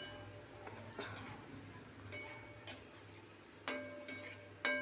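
Slotted metal spatula tapping and scraping against a metal kadhai while paneer cubes deep-fry in hot oil, giving about five sharp, ringing clinks, roughly one a second. A faint sizzle of frying oil runs under them.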